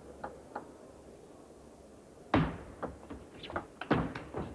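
Table tennis rally with a celluloid ball: a few light ticks, then about two seconds in a loud hit, followed by a quick run of sharp clicks as the ball strikes bats and table.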